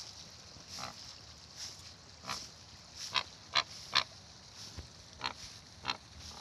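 Flamingos giving short, nasal grunting calls, about nine brief calls spaced irregularly, with the three loudest coming close together around the middle.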